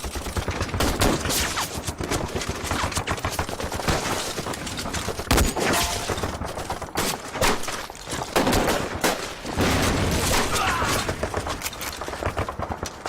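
Sustained battle gunfire, many rifle shots and machine-gun bursts overlapping with no pause.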